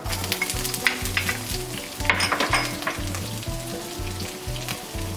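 Sliced garlic hitting hot grapeseed oil in a nonstick wok and starting to fry: a steady sizzle that starts sharply as the garlic goes in, with scattered crackles and a louder burst of crackling about two seconds in.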